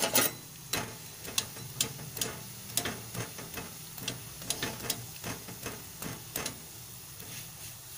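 Flat steel spatula pressing and scraping a paratha on a hot tawa: irregular sharp clicks and scrapes of metal on the griddle, a few a second, over a low steady hum.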